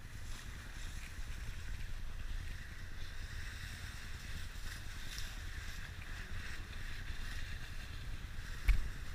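Steady low rumble of a vehicle driving slowly over snowy streets, with wind on an outside-mounted camera's microphone. A single sharp thump near the end.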